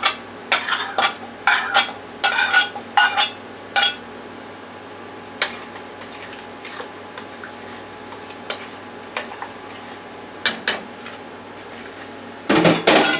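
A metal spoon scraping and clinking against a china plate and the rim of a stainless steel pot as chunks of haddock are pushed into the pot, a rapid run of clinks for about the first four seconds. A few faint taps of the spoon follow as the pot is stirred, then a short, loud metallic clatter near the end.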